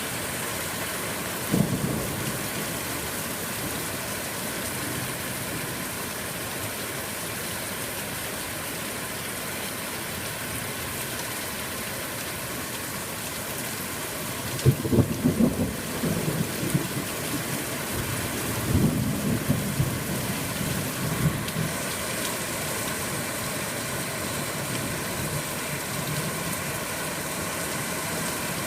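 Steady heavy rain falling, with thunder rumbling low once about a second and a half in and again in two longer rolls around the middle.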